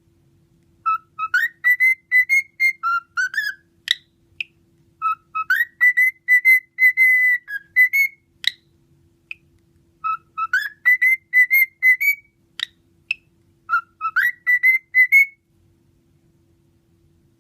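Cockatiel whistling a repeated tune in four short bouts of clear, even notes, with brief sharp chirps between phrases; it stops about two seconds before the end.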